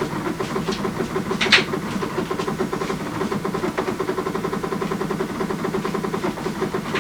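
Mitsubishi Kirigamine air conditioner making an abnormal fast, even rattling (katakata) noise at start-up, with one sharper click about a second and a half in. The owner doubts the usual explanation of a pressure difference, since the noise persists with a window open.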